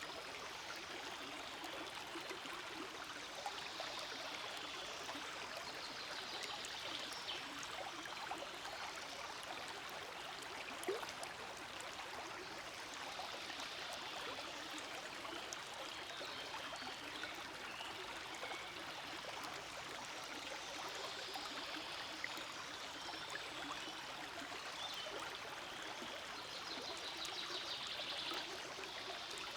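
Forest stream flowing, a steady, continuous sound of running water.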